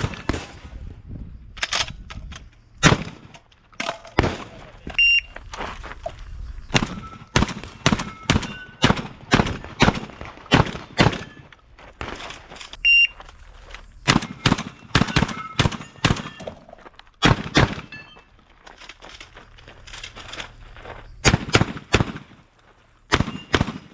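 Shotgun fired in quick strings, dozens of sharp shots a fraction of a second to about a second apart, with short pauses between strings.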